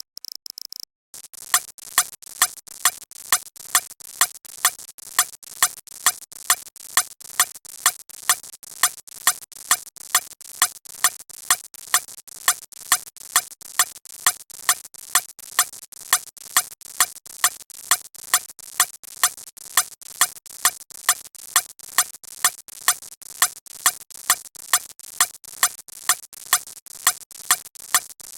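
A repeating electronic beat: sharp clicks in a strict, even rhythm, about two loud ones a second with quieter ones between, starting about a second in after a brief gap.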